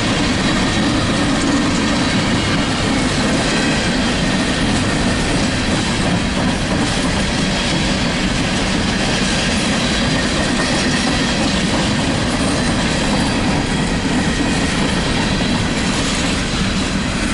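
Empty coal hopper cars of a CSX freight train rolling past: a steady, loud rumble and rattle of steel wheels on the rails.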